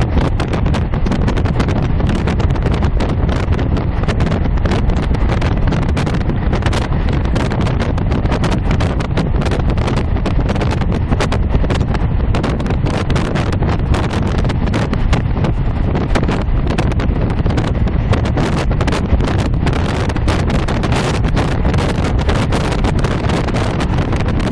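Steady rumble of a moving passenger train heard from inside the carriage through a mobile phone's microphone, with a dense crackle over it.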